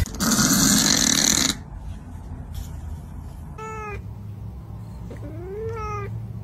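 A domestic cat meowing twice over a low steady hum: a short arched meow, then a longer one that rises in pitch. A loud rushing noise fills the first second and a half.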